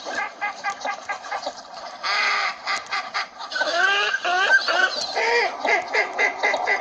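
Several northern shoveler ducks calling: rapid runs of short clucking notes, about five a second, with several longer calls overlapping at different pitches around the middle.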